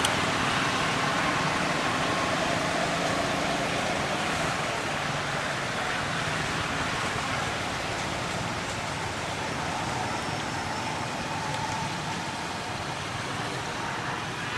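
Steady outdoor ambient noise: an even hiss like distant traffic, with no distinct calls or knocks, fading slightly toward the end.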